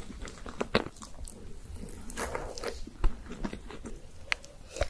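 Close-miked ASMR eating of chocolate cake: chewing, with a few sharp crunchy bites, the clearest about a second in and about three seconds in.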